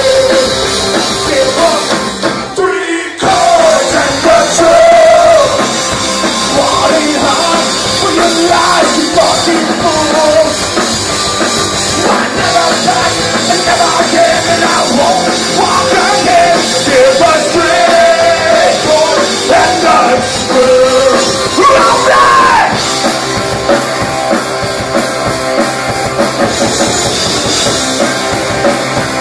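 Punk rock band playing loud and live: distorted electric guitar, electric bass and a drum kit, with a singing voice over much of it. The band drops out briefly about three seconds in, then comes back in.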